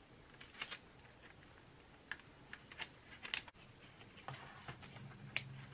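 Faint, scattered crackles and light taps of masking tape being stuck and pressed along the seams of a stiff paper horn form.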